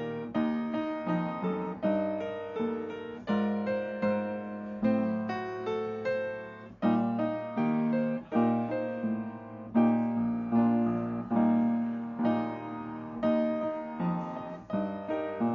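Piano playing chords, a new one struck every half second to second and each left to ring and fade.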